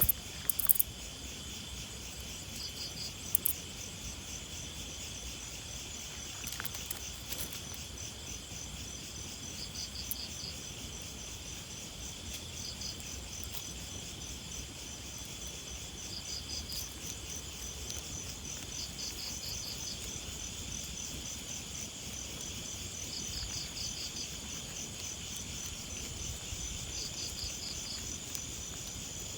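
Insects chirping steadily in grass: a continuous high pulsing chirp with short chirp bursts every few seconds, and a few sharp clicks in the first few seconds.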